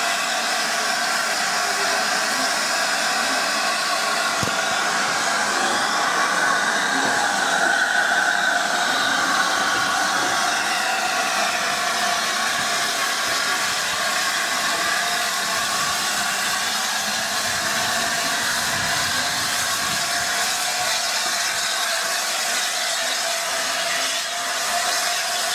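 LNER A4 class Pacific steam locomotive No. 4464 Bittern standing with a steady hiss of steam, with no exhaust beats.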